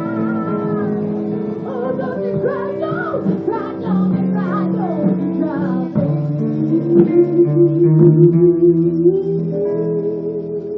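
Music: guitar accompaniment under a wordless sung melody that glides between notes, then settles into one long held note with vibrato in the second half.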